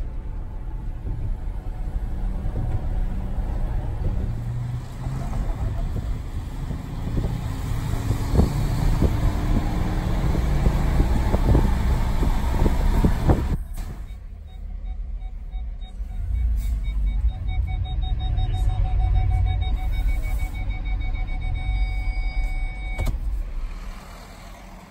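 Vehicle driving, with a steady low road rumble. Partway through, the sound changes abruptly, and a rapid electronic beep at a fixed pitch runs for several seconds.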